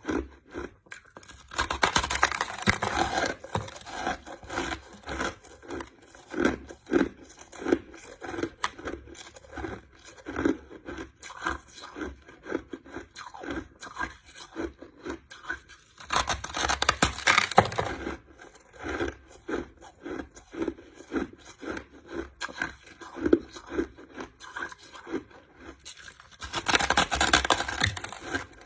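A person chewing crushed ice: a continuous run of crisp crunching and crackling, swelling into louder, denser crunching three times, about two seconds in, around the middle and near the end.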